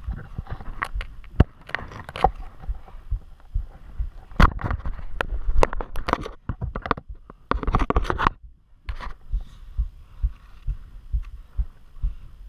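Crampon-shod mountaineering boots crunching and kicking into firm snow on a steep slope, with a steady rhythm of low thumps from the steps and denser bursts of crunching and scraping about four seconds in and again near eight seconds.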